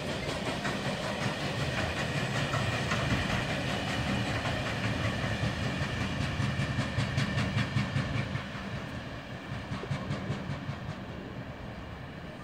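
Freight train of hopper wagons rolling past, its wheels clicking rapidly and evenly over the rail joints. The sound drops about two-thirds of the way through and fades as the train moves away.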